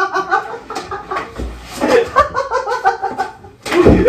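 People giggling and laughing in quick bursts, with a heavy thump near the end.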